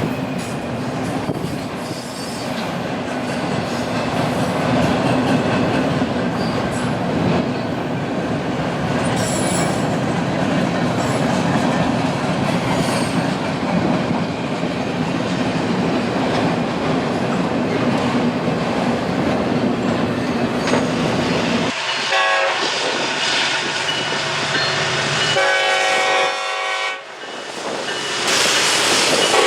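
Freight train rolling past, with steady wheel and rail noise. About three-quarters of the way in, the noise drops away and a locomotive air horn sounds a chord for several seconds before the rolling noise returns.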